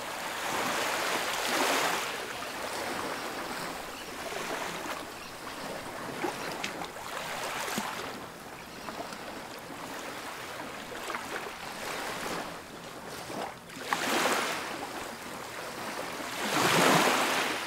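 Ocean waves washing against a rocky shore: a steady wash of surf that surges louder about two seconds in, again about fourteen seconds in, and near the end.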